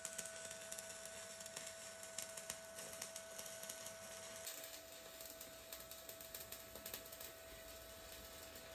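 Electric arc welding: a faint, irregular crackle of rapid clicks, over a steady high whine.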